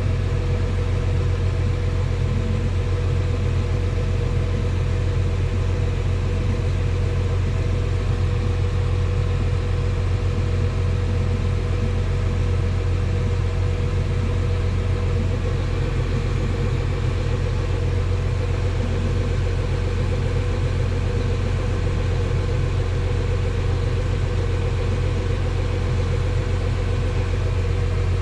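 Tractor diesel engine running steadily, heard from inside the closed cab as an even low drone with a constant hum above it.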